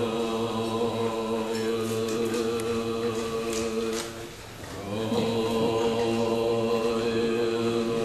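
A group of Tibetan Buddhist monks chanting in unison on steady, held low notes. The chant breaks off briefly about halfway through, then resumes.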